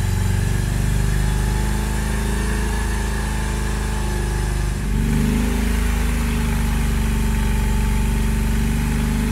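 BMW R 18's 1802 cc boxer twin running at steady held revs, recorded close to its exhaust; about five seconds in it gives way to the R 18 Classic's engine through its long straight exhaust, which runs about 10 dB louder than the standard R 18's at 3000 rpm.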